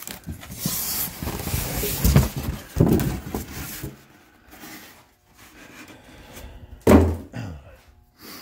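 Cardboard packaging being handled: a few seconds of scraping and rustling with some knocks, then one loud thump about seven seconds in.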